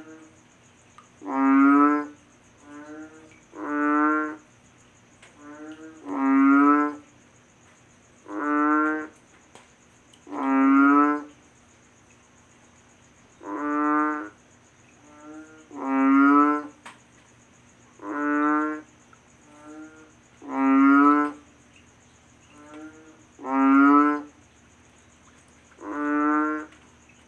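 A frog croaking over and over: a loud, deep, throaty croak about every two seconds, with fainter croaks in between.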